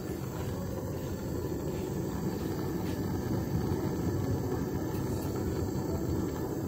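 Handheld gas torch burning LPG fed by hose from a 3 kg cylinder: a steady rushing flame noise that holds at an even level.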